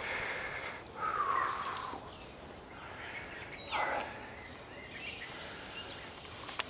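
Outdoor ambience: a steady hiss of background noise with a few faint bird calls, one about four seconds in.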